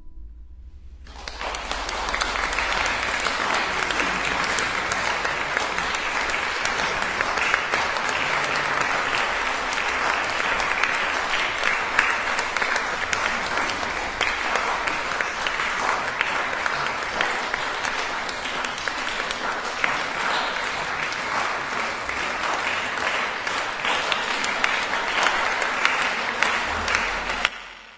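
Audience applauding. It builds up about a second in, holds steady, and cuts off abruptly near the end.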